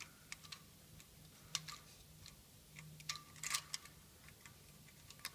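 Faint, scattered light clicks and ticks of hands and the old gasket against the engine's metal as the dual Vanos gasket is pulled off the front of the cylinder head, with a small cluster of clicks about three and a half seconds in, over a low steady hum.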